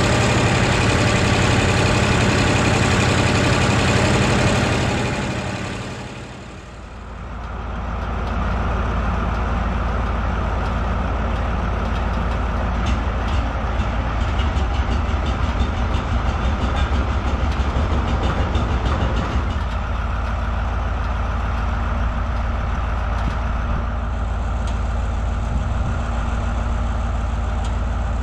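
For the first six seconds, the Oliver 2255's Caterpillar 3150 V8 diesel is running while the tractor drives. After a brief dip, the sound becomes a steady diesel idle. This is the freshly cold-started Oliver 1950's Detroit Diesel 4-53 two-stroke, smoking, with the 2255's V8 idling close by and drowning it out.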